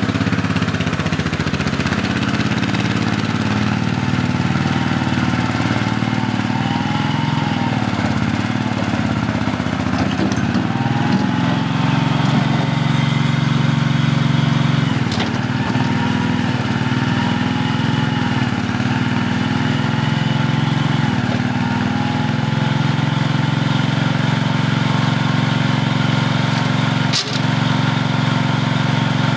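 Skid-steer loader's engine running steadily, with a whine that rises and falls as the bucket is worked, and a single sharp clank near the end.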